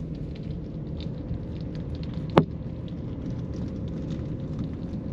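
Steady road and engine rumble heard from inside a moving car, with faint scattered crackles and one sharp click a little before halfway through.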